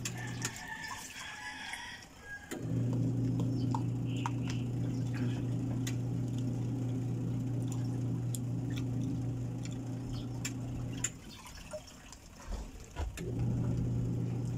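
A steady low electrical hum that cuts out suddenly about half a second in and again around eleven seconds, coming back each time after about two seconds. Light clicks of a spoon against a plastic tub sound over it.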